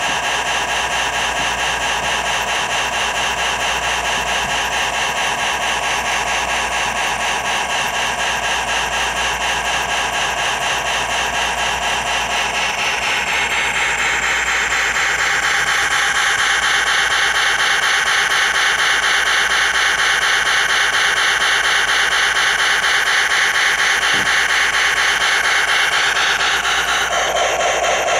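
The USA Trains Docksider G-scale locomotive's electric motor and gear drive run with a steady whir as the wheels turn. The sound grows louder about halfway through.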